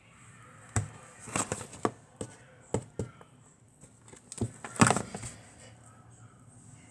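Slime being squeezed and worked in the hands, giving a run of short sharp wet clicks and pops. The loudest cluster comes about five seconds in.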